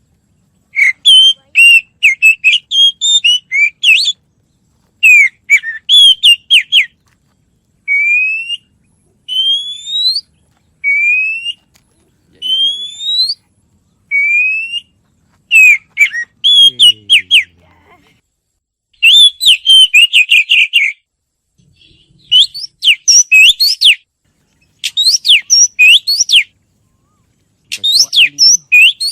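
A songbird singing loudly in bursts of quick, varied chirps. About 8 to 15 seconds in, the bursts give way to a series of single rising whistled notes, one roughly every second.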